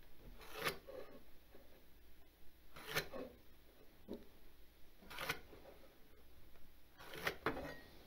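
Pencil scratching marks on a pine 2x6 along a speed square, with the square handled and slid on the wood: a few short, faint scrapes about two seconds apart.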